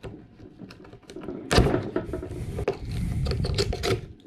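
Oyster knife worked into the hinge of an oyster shell: clicks, knocks and scraping of blade on shell. From about a second and a half in there is a heavy close rumble of handling noise from the camera held in the mouth.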